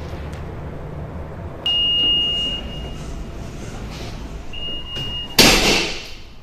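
Funicular door warning tone: a steady high beep sounds twice, each about a second long, then the car's sliding doors shut with a loud sudden rush about five seconds in, over a steady low hum.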